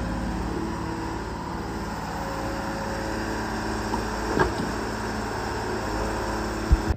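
125B excavator's diesel engine running steadily under load as the bucket digs sandy gravel. A clank comes about four seconds in and a sharp thump near the end.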